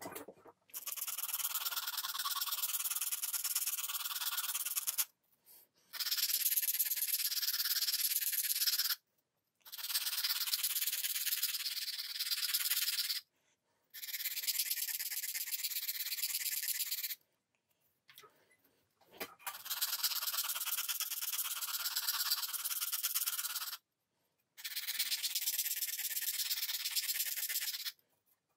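Small flat metal file rasping against the end of a strip of bassoon reed cane, beveling it. Six spells of steady filing, each three to four seconds long, with short pauses between.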